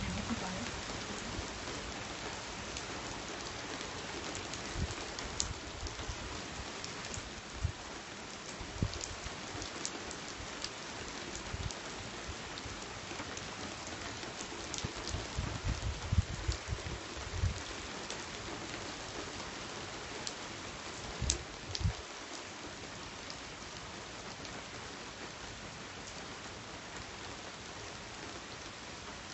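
Steady rain falling, with single drops striking sharply close by now and then and a few clusters of low thumps about halfway through and again after twenty seconds.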